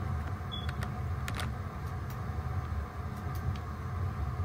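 Steady low rumble of background noise with a few faint computer mouse clicks.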